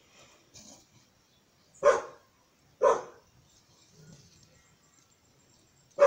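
A dog barking: three short, sharp barks, two about a second apart and a third near the end.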